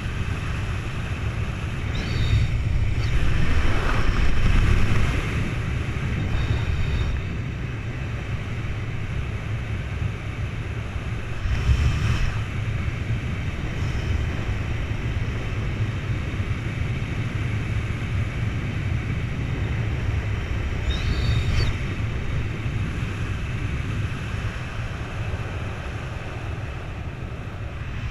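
Wind rushing steadily over a helmet-mounted camera's microphone during a descent under an open parachute canopy, with a few brief louder gusts.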